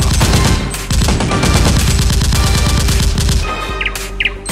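Rapid automatic gunfire, a dubbed sound effect over background music, stopping about three and a half seconds in.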